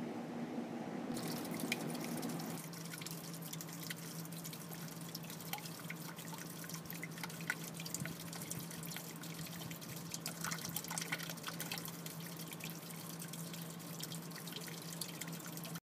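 Water from a small solar-powered 80 GPH pump splashing back onto the surface of an aquaponics tank: a dense, steady patter of drops that starts about a second in, over a steady low hum.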